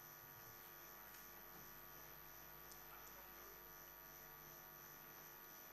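Near silence: a faint steady electrical hum of room tone.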